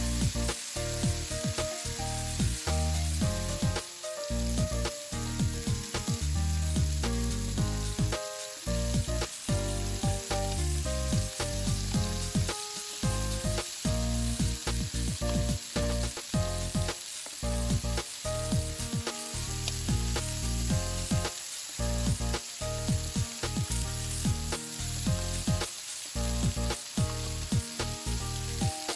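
Lamb loin chops sizzling steadily as they pan-sear in a nonstick skillet, with tongs turning them now and then. Background music plays underneath.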